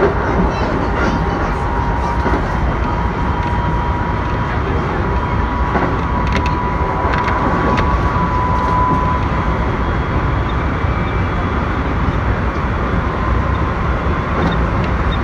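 Keikyu limited express train running, heard from inside the passenger car: a steady rumble with a faint high whine that comes up in the middle, and a few light clicks.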